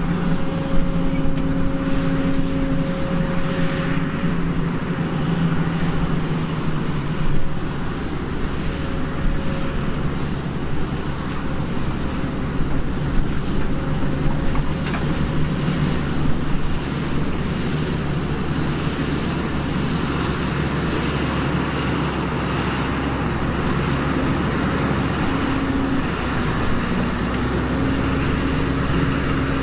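Diesel engines of heavy earthmoving machines at work, a New Holland E215B crawler excavator and Terex TA30 articulated dump trucks: a steady engine drone whose pitch and loudness shift as the machines work, with a few scattered knocks.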